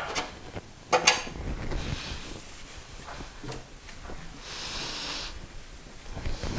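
Cloth wiping a stainless steel sink dry, with a sharp knock about a second in and a few light taps, and a short stretch of rubbing noise past the middle.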